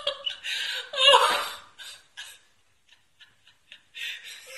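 A person laughing and giggling in breathy bursts, loudest about a second in. A few faint light ticks fill a quieter stretch in the middle.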